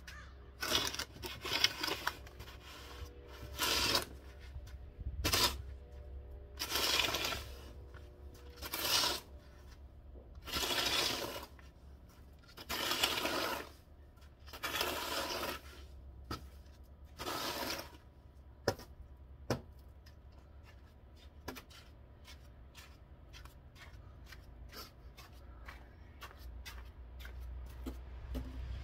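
Snow shovel scraping snow off a driveway, a stroke about every two seconds. Past the middle the scraping stops, leaving only a few faint clicks.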